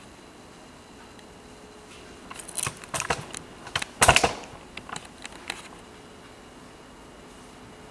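Camera handling noise: a cluster of sharp clicks and rustles, loudest about four seconds in, over a faint steady hum.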